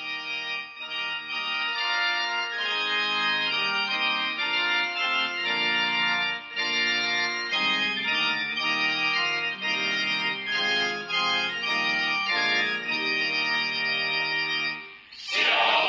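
Organ playing slow, sustained chords that change every second or so. A choir comes in singing just before the end.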